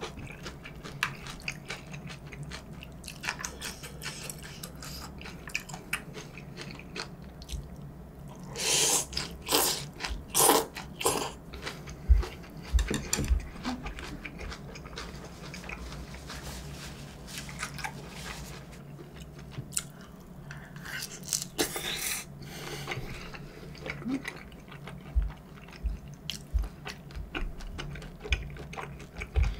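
Close-miked eating: chewing and smacking on a mouthful of jjamppong noodles and bean sprouts, with many small wet clicks. There is a run of louder bursts about nine to eleven seconds in and a shorter one a little past twenty seconds.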